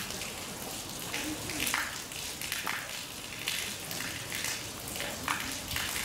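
Outdoor ambience: a steady hiss with many irregular crackles and faint distant voices.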